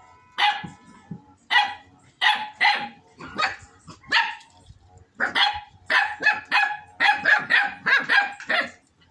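Small dogs barking in short, sharp, high barks, spaced about a second apart at first, then coming in quick succession from about halfway through.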